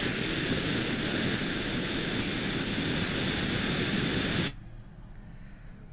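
Steady rushing hiss with a faint high whistle, cutting off suddenly about four and a half seconds in.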